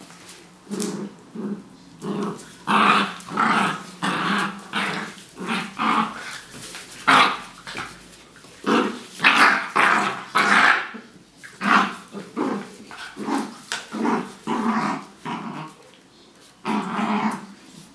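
Small dogs play-growling in short, repeated bursts as they pull against each other on a toy in a tug of war.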